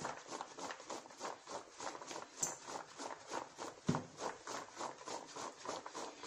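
Cooked peanuts being tossed and rubbed in flour by hand in a plastic mixing bowl: a quick, steady rhythm of short rubbing strokes, about five a second. A louder knock comes about four seconds in.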